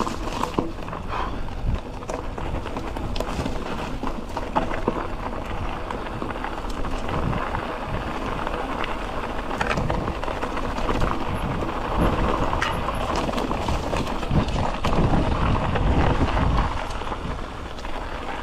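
Polygon Siskiu T7 full-suspension mountain bike riding down a dirt and gravel trail: knobby tyres crunching over the ground and the bike rattling over bumps with scattered clicks and knocks, over a low rumble that is strongest in the second half.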